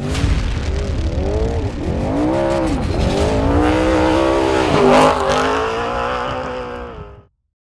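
Off-road race vehicle's engine running hard, its pitch rising and falling again and again as the revs change, over a heavy low rumble. It cuts off suddenly near the end.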